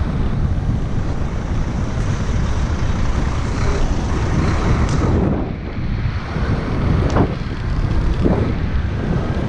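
Wind rushing over the microphone of a camera on a moving bicycle: a steady low rumble, with a few brief louder swells in the second half.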